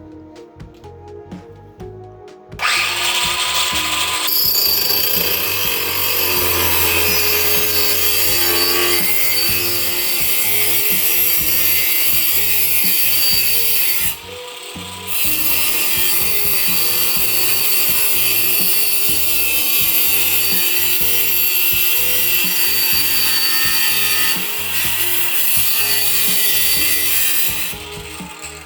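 Power tool cutting through a metal rod, running steadily from about two and a half seconds in, with a short break about halfway and stopping near the end. Faint background music before the cut starts.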